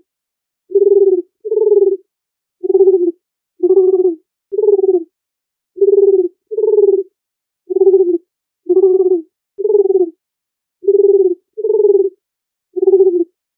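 Dove cooing: a run of about thirteen short, low coos, roughly one a second, with dead silence between them.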